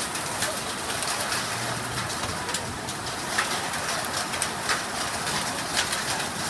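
Heavy thunderstorm rain pouring down in a steady hiss, with a dense scatter of sharp ticks from drops striking close by.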